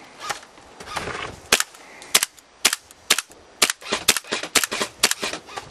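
Airsoft guns firing single shots: an irregular run of more than a dozen sharp cracks, some louder and closer than others.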